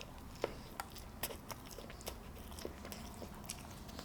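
Close-miked chewing of a mouthful of a Sonic Double Smasher burger, with scattered soft mouth clicks.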